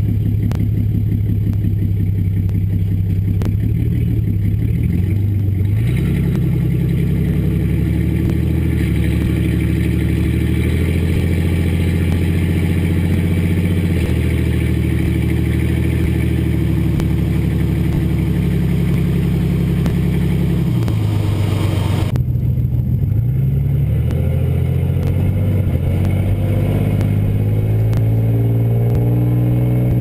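1999 GMC Sierra's 4.3L V6 running through Flowmaster Outlaw mufflers while the truck is driven, with tyre and road noise underneath. The exhaust note climbs about six seconds in, drops back about twenty-one seconds in, and rises again near the end as the truck accelerates.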